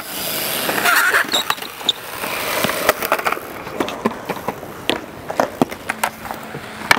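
Skateboard wheels rolling on smooth concrete, with scattered sharp clacks of the board and trucks hitting the ground.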